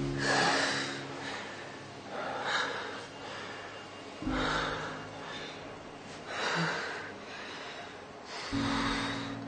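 Heavy breathing and gasps from two people, one breath about every two seconds.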